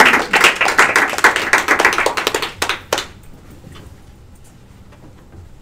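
A small group applauding, many hands clapping together, stopping fairly suddenly about three seconds in.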